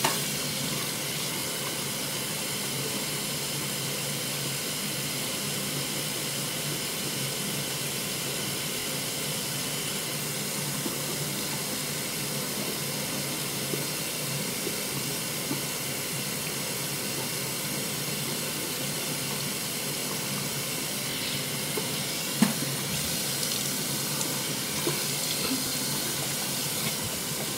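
Bathroom sink tap running steadily while someone washes, splashing water from cupped hands onto the face and mouth. One sharp knock sounds about three-quarters of the way through.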